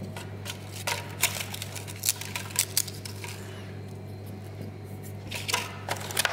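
Crisp paprika tapioca crackers crackling and snapping as they are broken up by hand and dropped onto a salad, with light clicks from a plastic tub, over a steady low hum.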